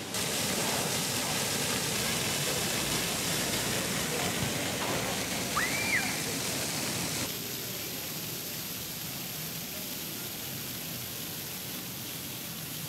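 Fountain jets splashing, a steady rush of falling water. About halfway through, a short high tone rises, holds and falls; after about seven seconds the rush gives way to a quieter, steady hiss.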